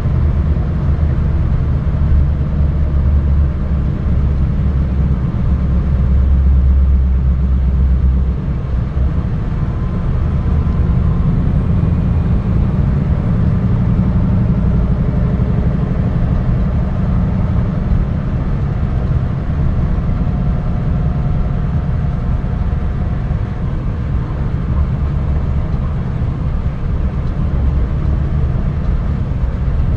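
Scania R580 truck's V8 diesel engine running steadily, a low drone that is a little louder for the first eight seconds and eases slightly about eight seconds in.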